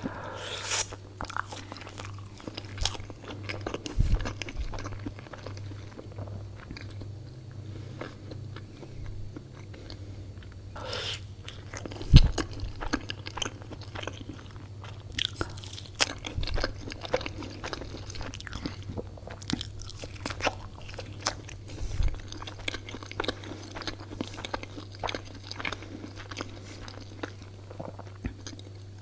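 Close-miked eating: a person biting and chewing, with irregular crunches and wet mouth clicks. A single loud knock comes about twelve seconds in, and a steady low hum runs underneath.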